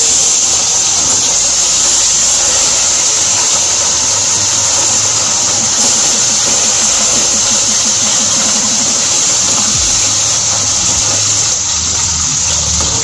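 Whole small carp (chara pona), rubbed with salt and turmeric, sizzling loudly in hot oil in a nonstick kadai just after being put in. The hiss is steady throughout.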